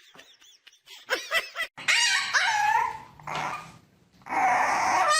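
A dog whining and yelping: several short cries that rise and fall in pitch, loudest near the end.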